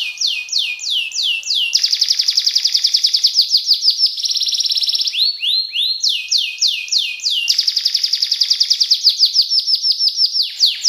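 Domestic canary singing a loud, continuous song of rapid trills. Runs of repeated downward-sweeping notes change speed every second or two, including a very fast rolling trill about halfway through.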